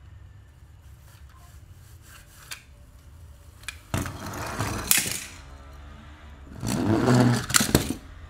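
Die-cast toy cars shoved across artificial turf and onto a plastic board by a hand-pushed toy combine harvester, scraping and rustling in two bursts, about four and seven seconds in.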